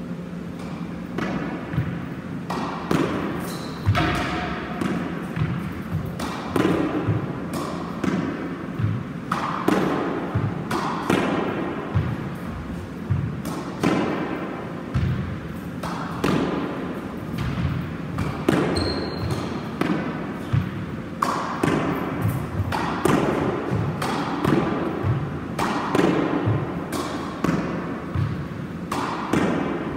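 A squash ball being hit again and again in solo practice: racket strikes and the ball smacking the walls and bouncing on the wooden floor, about one or two hits a second, echoing in the enclosed court. Sports shoes squeak on the wooden floor between shots.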